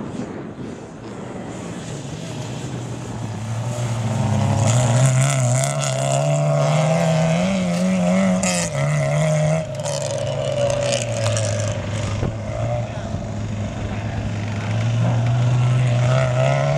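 Autocross race car engines revving hard on a dirt track, the pitch climbing and dropping with throttle and gear changes, louder from about four seconds in.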